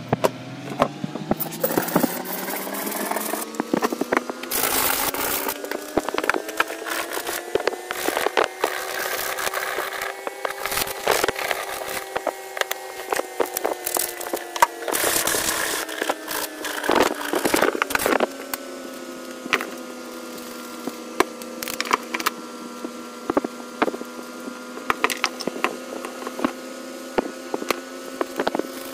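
Clicks, knocks and scraping as metal parts of a four-stroke grass trimmer engine (crankshaft, flywheel, piston) are handled and fitted by hand. Under them runs a steady motor hum that rises in pitch over the first few seconds and then holds.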